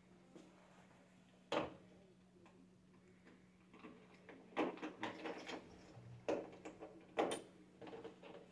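Hand-turned clear acrylic lottery drum full of paper tickets: the mass of paper slips slides and tumbles inside as it rotates, giving about five knocks with rustling after each, under a steady low hum.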